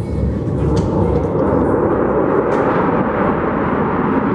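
Loud, steady roar of jet aircraft engines, swelling about a second in.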